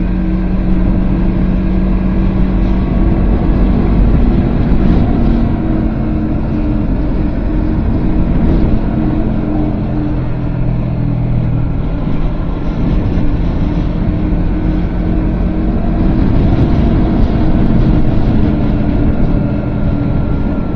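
Honda CBR250RR's parallel-twin engine running through a WR'S SS-OVAL titanium slip-on silencer. The exhaust note rises and eases off several times with the throttle.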